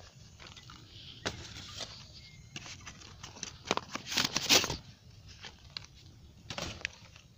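Bonfire crackling, with scattered irregular snaps and pops over a faint hiss.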